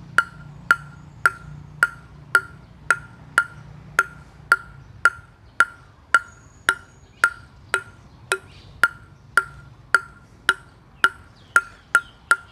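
Table tennis ball bounced steadily on the bare face of a Butterfly Ovtcharov Innerforce ALC blade (limba outer plies, ALC fibre inside), making sharp knocks about two a second, each with a short ring. This is a bounce test for hearing the blade's tone and feel.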